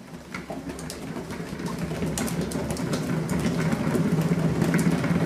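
Cat exercise wheel rumbling as a kitten runs in it, getting steadily louder as the wheel spins up, with scattered light clicks.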